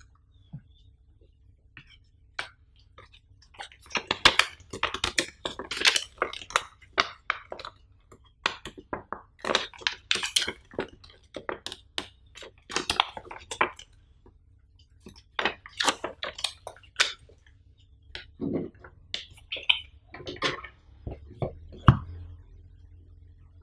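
Unboxing handling sounds: a folded paper instruction leaflet crackling and rustling as it is opened and handled, with taps and scrapes of cardboard packaging and a USB cable on the tabletop. Irregular crisp crackles come in clusters, with a sharp tap near the end.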